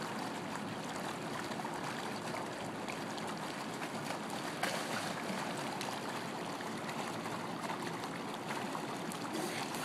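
Steady trickling and lapping of swimming-pool water, stirred by a swimmer moving through it with a child on his back.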